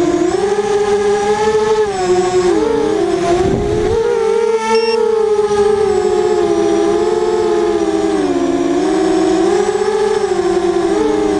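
Four brushless motors of an FPV racing quadcopter, T-Motor 2000Kv with 5045 bullnose props, whining in flight as heard from the onboard camera. The pitch wavers up and down with throttle, and the close tones split apart and cross as the motors change speed through turns.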